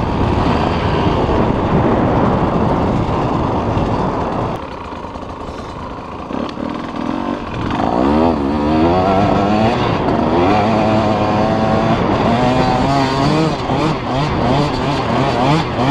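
KTM 150 XC-W's two-stroke single-cylinder engine being ridden hard, revving up and down with the throttle. About four seconds in the revs drop off for a few seconds, then climb again in a run of quick wavering rises and falls.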